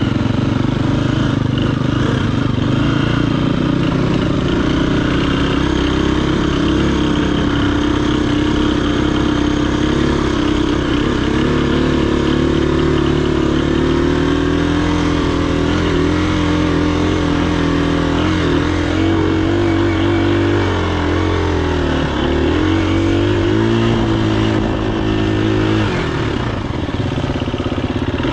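Dirt bike engine running hard under throttle while climbing a steep, loose dirt hill, heard from on the bike. The pitch rises and falls as the throttle is worked, easing off briefly near the end.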